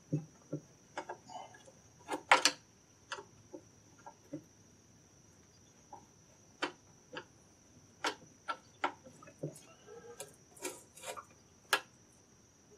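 Irregular metal clicks and light knocks of a Homelite chainsaw's chain being worked by hand into the bar groove and around the sprocket while it is re-fitted and tensioned. The loudest knock comes about two seconds in.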